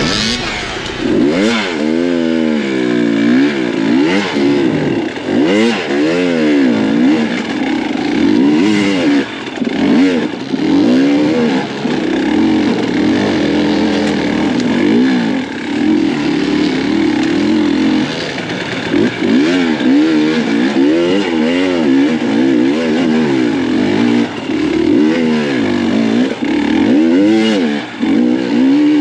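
Dirt bike engine revving up and down over and over as the rider works the throttle through the course.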